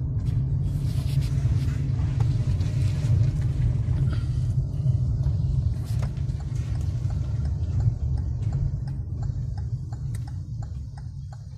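Car driving slowly through town streets, a steady low rumble of engine and road heard from inside the cabin that fades near the end as the car slows. In the second half, a faint, regular light ticking of about two a second.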